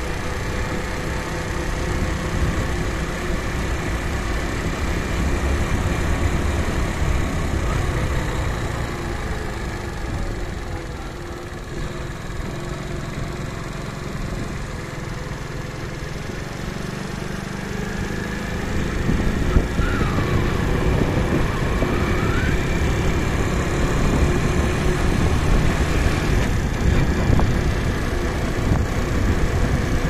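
Engine and road noise of a vehicle driving along an open road, a steady low rumble that grows somewhat louder a little past halfway.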